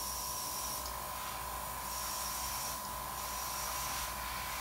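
Airbrush spraying nail paint in short bursts of air hiss, three in a row a second or so apart, over the steady hum of the airbrush machine running.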